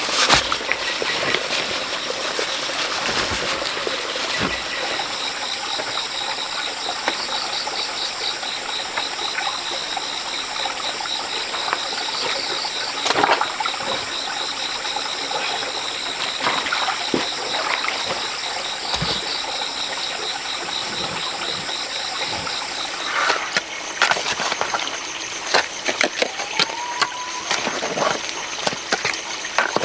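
Steady rush of running water with high insect calls over it, one of them pulsing rapidly through most of the clip; scattered knocks and clicks come more often near the end.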